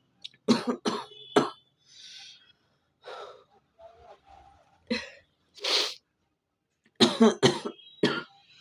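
A woman coughing in repeated fits: a few short coughs near the start, single coughs through the middle, and a quick run of several near the end. It is a chesty cough from a cold, with phlegm settled on the chest.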